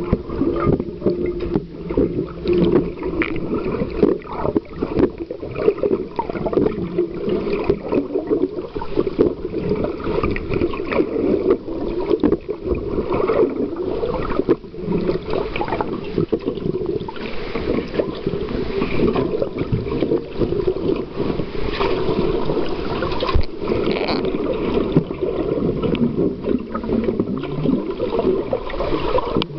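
Muffled underwater churn of rough sea water heard through a submerged camera housing, with bubbling and frequent knocks throughout, one sharper knock near the end.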